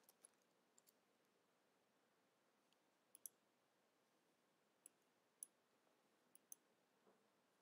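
Near silence with a handful of faint, sharp computer mouse clicks scattered through it.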